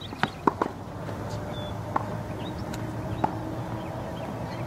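Tennis ball being struck by rackets and bouncing on the court: sharp pops, three close together in the first second, then single ones a little over a second apart, over a steady low hum.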